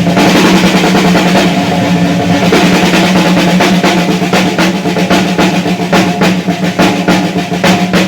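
Live rock drum kit solo: fast snare and tom rolls with bass drum, the strokes growing more spaced and distinct about halfway through, over a steady low ringing tone.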